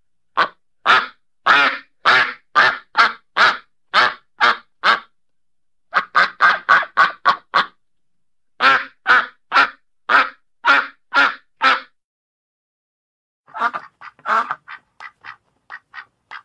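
Duck quacking in runs of loud, evenly spaced quacks, about two a second, broken by short pauses. After a pause of about a second and a half, quicker and softer quacks follow near the end.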